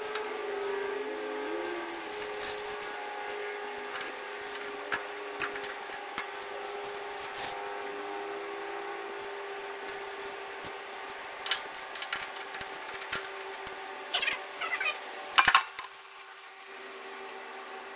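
Intermittent metallic clinks and clicks of hydraulic hose fittings and a socket wrench being worked by gloved hands, with a loud cluster of clatter near the end, over a steady background hum of held tones.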